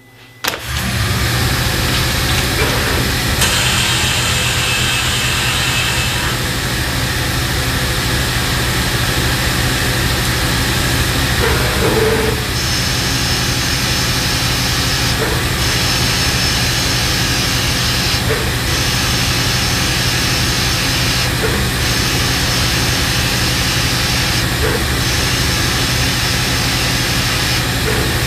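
OmniTurn GT-75 CNC lathe machining a paintball grip part under flood coolant: the spindle and coolant start suddenly about half a second in, then run as a steady hum under a high spraying hiss. In the second half the hiss breaks off briefly about every three seconds.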